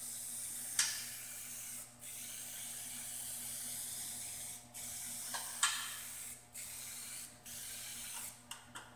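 Aerosol spray can hissing in a run of long bursts with short breaks between them as a paint restorer is sprayed onto the mixer's painted metal, with two sharp ticks among the bursts.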